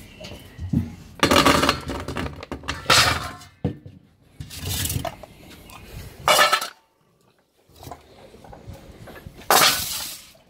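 Stainless steel dog bowls clattering, with dry kibble rattling into them, in about five loud, short bursts.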